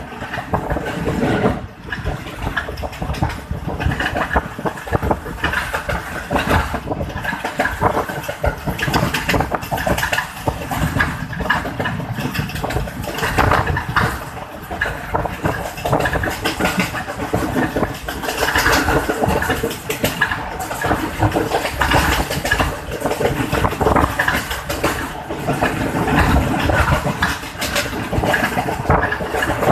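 A passenger train running at speed, heard from inside the carriage: a loud, steady rumble of wheels and coach, with many quick rattles and knocks.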